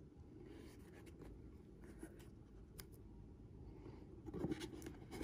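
Quiet handling noise: hands turning a leather chukka boot over a tissue-lined shoebox, with soft scratchy rubs and a few faint ticks, growing louder with rustling and a couple of knocks in the last second. A low steady room hum lies underneath.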